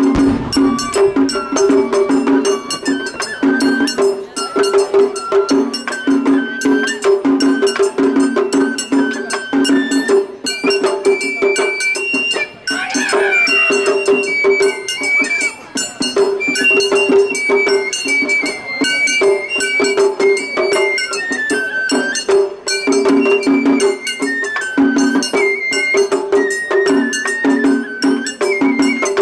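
Japanese festival hayashi music: a high bamboo-flute (shinobue) melody stepping between notes over rapid, steady strokes of taiko drums and clanging hand-gong percussion.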